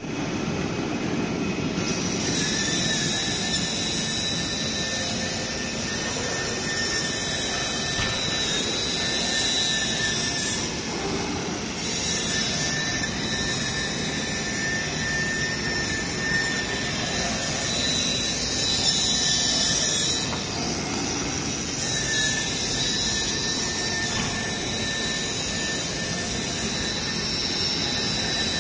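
CNC digital flatbed cutter with a circle knife cutting Kraft paper: a steady machine drone with a high, thin whine. The whine runs for long stretches and drops out briefly a couple of times.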